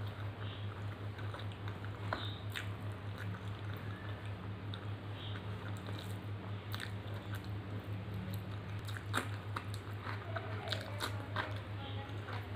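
Close-up eating sounds: wet chewing and mouth clicks from a mouthful of rice and vegetables, with squishing as fingers mix rice and dal on a steel plate. The clicks grow more frequent near the end, over a steady low hum.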